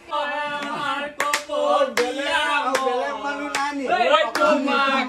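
A group of men singing a Bihu song together, keeping time with sharp hand claps about every 0.8 seconds.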